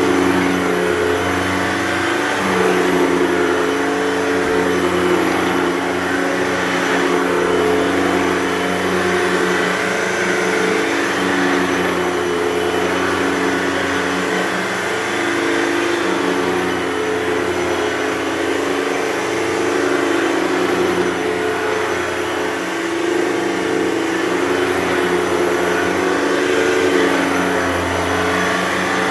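Hoover Total Home Pet upright vacuum cleaner running on carpet: a steady motor hum and whir, its level rising and falling slightly.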